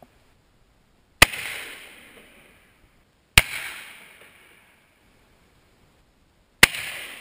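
Three shots from a lever-action rifle, about two and three seconds apart. Each sharp crack is followed by a long echo that fades out.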